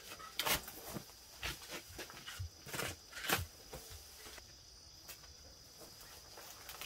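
A garden hoe chopping and scraping into soil and stones, about half a dozen strokes in the first three and a half seconds, then only faint scuffs. A steady high insect buzz runs underneath.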